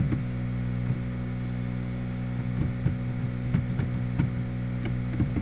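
Steady electrical mains hum with a series of soft, irregular taps, typical of laptop keys being pressed to move the cursor and delete characters in a line of text.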